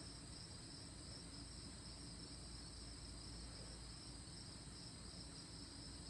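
Faint, steady chorus of insects: a continuous high-pitched drone with no breaks or pauses.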